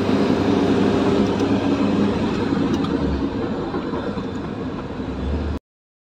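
Engine and road noise of a minibus heard from inside the passenger cabin while riding, loud and steady with a low hum. It cuts off abruptly near the end.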